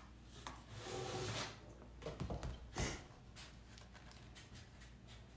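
Faint handling of a metal ruler on drawing paper at a table: a soft rustling swell about a second in, then a few light knocks and a sharp click a little before the three-second mark.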